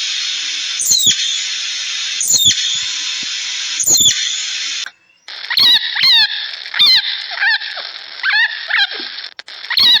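High-pitched animal squeals: three short calls about a second and a half apart over a steady hiss, then a different recording with quicker squeaky calls, about two a second, each falling in pitch.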